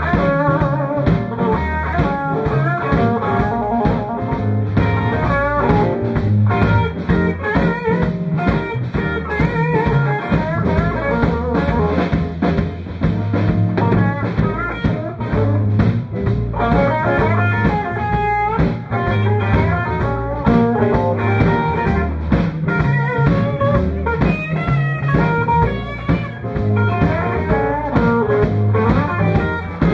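Live blues band playing: electric guitars over bass guitar and a drum kit.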